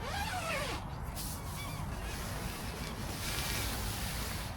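Birds calling in short squawks that rise and fall in pitch, several in the first second and a half and a few more about three seconds in, over a steady background rush.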